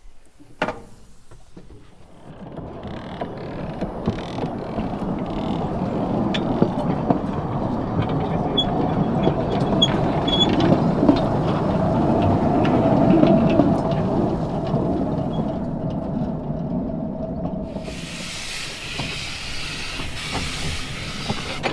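Kerr Stuart No. 3128 of 1918 narrow-gauge steam locomotive pulling away with its train, the rumble and clatter of wheels on the track building up over several seconds and then easing. A steady hiss comes in near the end.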